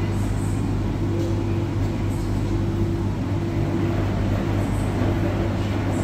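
Electrolux Professional WN6-14 front-load washing machine running, its drum turning the wet load with water sloshing over a steady motor hum.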